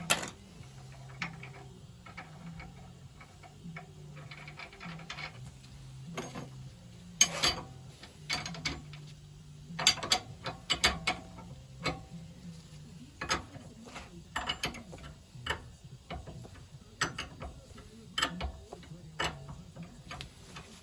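Small metal parts and hand tools clicking, tapping and clinking at irregular moments while the fuel and oil pump is worked on and reassembled, over a faint low hum.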